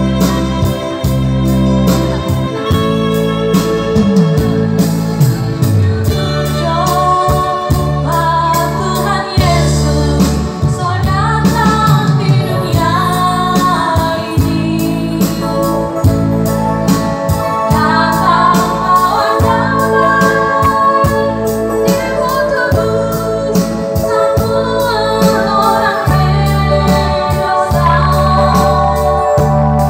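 Live music played over PA speakers: an electronic arranger keyboard with a built-in drum beat and bass, and a woman singing the melody into a microphone.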